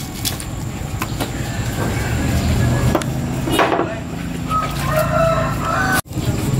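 A rooster crows once near the end, a call a little over a second long, over a steady low engine hum. A few knocks of knives and fish against the wooden cutting board come before it.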